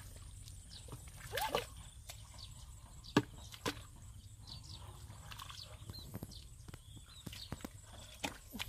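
Bare feet wading through shallow muddy water, with sloshing steps and squelches in the mud and a few sharp splashy clicks, the loudest about three seconds in.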